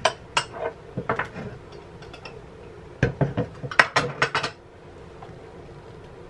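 Hard kitchen items clinking and knocking as they are handled, in two bursts of sharp clicks: one in the first second and a half, a louder one from about three seconds in. A faint steady hum runs underneath.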